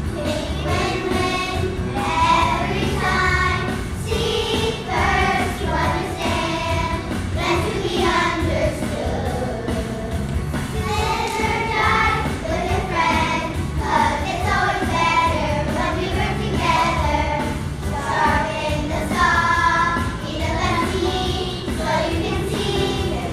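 Children's choir singing a song together, over a steady low musical accompaniment.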